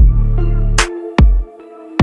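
Electronic background music with a deep bass and a drum beat. The bass drops out briefly near the end.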